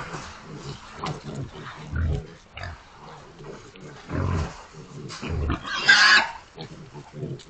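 A group of about nineteen hogs grunting over one another, with a loud squeal about six seconds in.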